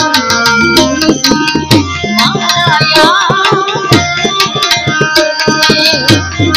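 Gujarati devotional bhajan music: a harmonium playing its melody over a hand-drum beat, with a fast, dense run of sharp percussive clicks.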